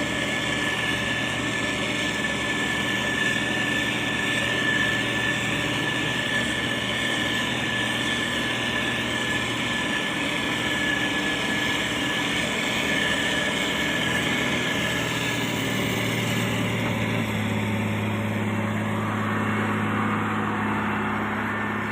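Motor grader's diesel engine running steadily with a steady high whine over it; about two-thirds of the way through, the engine note shifts lower.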